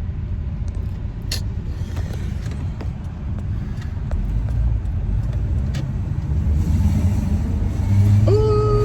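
Car driving, heard from inside the cabin: a steady low road and engine rumble with a few faint clicks. Near the end a brief held pitched tone sounds over it.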